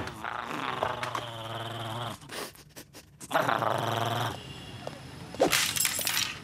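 Cartoon dog growling and snarling in two wavering stretches, each a second or two long. Near the end comes a short, loud crash as a handheld game console hits the pavement and breaks.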